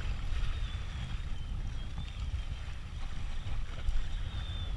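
Wind rumbling on the microphone, with small waves washing over rocks at the water's edge.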